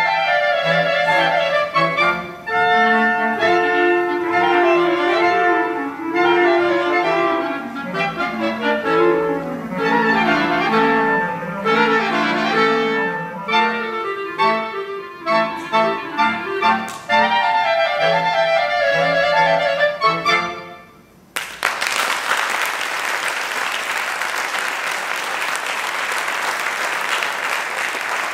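A clarinet choir, soprano clarinets down to bass clarinets, plays the closing stretch of a march, which ends about three quarters of the way through. After a brief pause the audience applauds.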